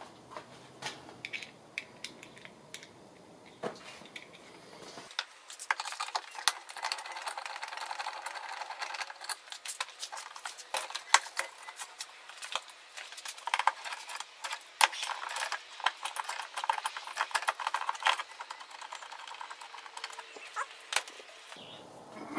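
Many sharp clicks and small plastic rattles as a car's inner door panel trim is handled and pried at. The clicks are sparse at first and come thick and fast from about five seconds in.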